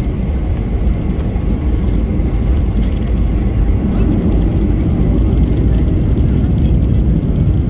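Jet airliner's engines and cabin noise heard from inside the passenger cabin: a loud, steady low roar that builds slightly.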